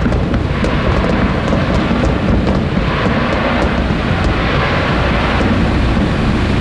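Wind buffeting the microphone aboard a boat: steady, dense noise strongest in the low end, with a few faint crackles in the first few seconds.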